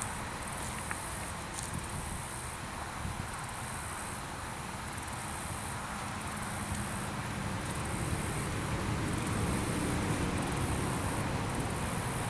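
Lakeshore ambience: a steady high chirring of insects, likely crickets, over an uneven low rumble of wind on the microphone that grows a little stronger in the second half.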